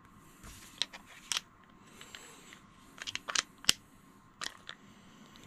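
Sharp metallic clicks and taps in small scattered clusters as a socket-ended screwdriver is handled and fitted onto the bottom float-bowl screw of a small Suzuki 2.5 hp outboard's carburetor during reassembly.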